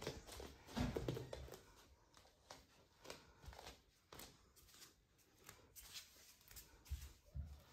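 Faint scattered soft taps and rustles in a quiet room, with a few louder low thumps about a second in and again near the end.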